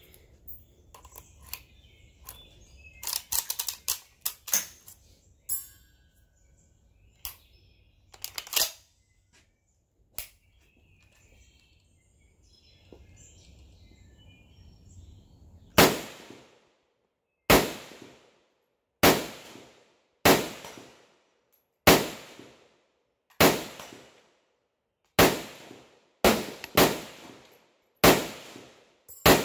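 An SKS semi-automatic rifle (7.62×39mm) handled with metallic clicks and clacks, then fired about ten times at a steady pace, roughly one shot every second and a half, each shot with a short ringing tail.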